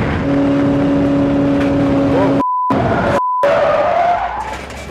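Spec Racer Ford race-car engine held at steady high revs, then revving higher near the end as the car skids and runs wide off the track, with a low rumble. Two short censor bleeps cut in, about two and a half and three and a quarter seconds in.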